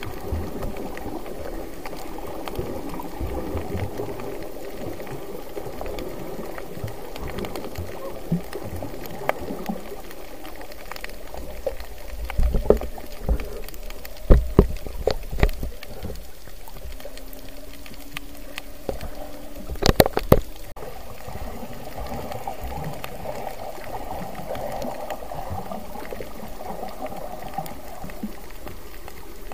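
Muffled underwater water movement and bubbling, heard through an action camera's waterproof housing, with scattered clicks, a cluster of knocks about halfway through and a sharp double knock about two-thirds of the way in.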